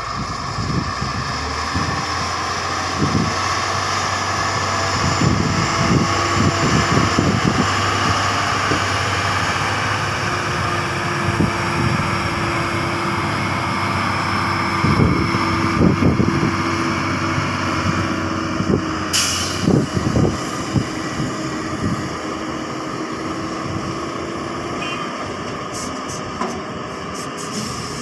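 Diesel engines of a Hyundai crawler excavator and yellow dump trucks running steadily, with the excavator working and occasional low thuds. A short hiss cuts in about two-thirds of the way through.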